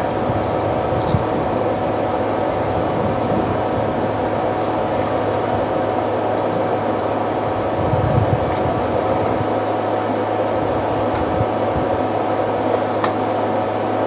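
Steady hiss with a constant low hum and a thin higher tone, broken by a few soft low thumps about a second in, about eight seconds in and near the end.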